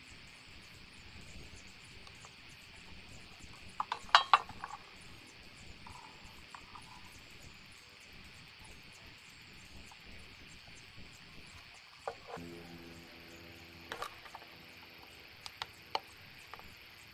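Steady chirring of insects in the background, with a few sharp clicks and taps from the PVC cabin and plastic glue bottle being handled; the loudest cluster of clicks comes about four seconds in, and a few more come near the end.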